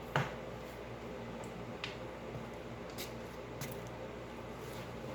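A few sharp clicks and light knocks of metal parts and tools being handled during washing-machine repair work, the loudest just at the start and three more about two, three and three and a half seconds in, over a steady low hum.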